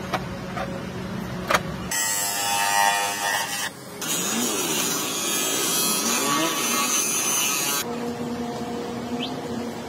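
Bench grinder running with a plastic car tail light lens pressed against its wheel: a loud, harsh grinding hiss from about two seconds in until near eight seconds, with a brief break a little before halfway. Before and after it, a low steady workshop hum with a few light clicks.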